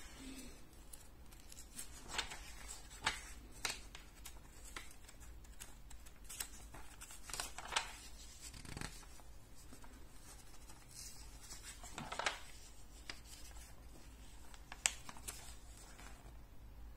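Pages of a glossy magazine being handled and turned: soft, irregular paper rustles and swishes, a dozen or so spread through the stretch.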